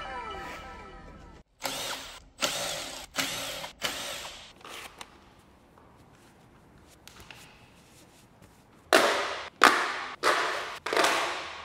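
Cordless screwdriver run in short bursts, about five times and then four more near the end, its motor whine rising and falling with each trigger pull while it undoes screws on a hybrid high-voltage battery pack.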